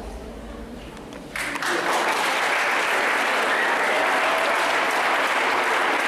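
An audience applauding, breaking out about a second and a half in and holding steady.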